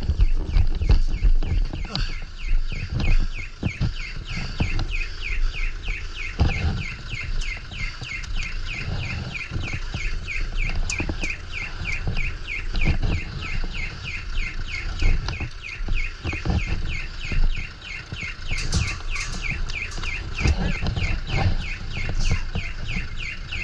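A high chirp repeated evenly, about three times a second, over the irregular thumps and rustle of footsteps and gear as a player moves on foot.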